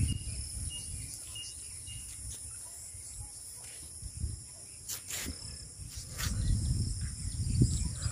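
Steady high-pitched chorus of insects, several shrill tones held at once without a break. A low rumble rises under it near the end.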